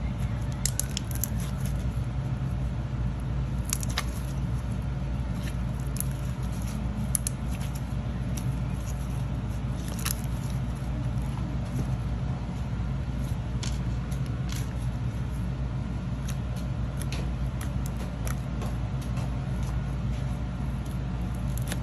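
Slime being squeezed, folded and stretched by hand, giving scattered small clicks and crackly pops. A steady low hum runs underneath and is the loudest sound.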